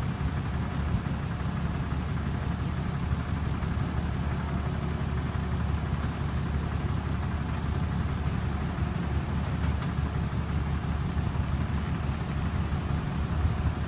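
A machine running steadily with a low rumble.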